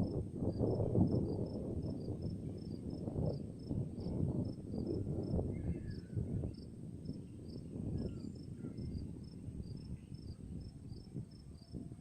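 Insect, likely a cricket, chirping in a steady train of short high chirps, about three or four a second, over a thin steady high whine. Under both runs a louder, uneven low rumbling noise.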